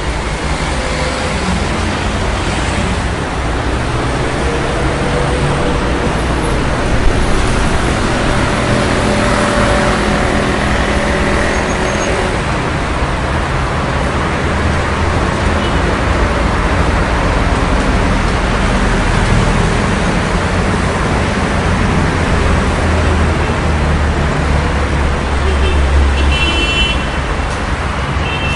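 City street traffic: cars and heavier vehicles running and passing in a continuous mix of engine hum and tyre noise. A single sharp knock comes about a quarter of the way in, and a brief high-pitched squeal sounds near the end.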